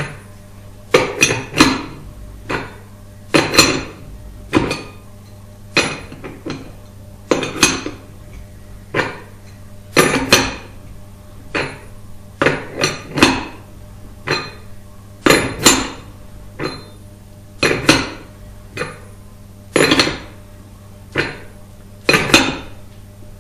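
Metal clinks of a spanner winding the return stroke setter on an Avdel 73200 installation tool, drawing the head piston forward: a sharp clink every second or so, sometimes two in quick succession.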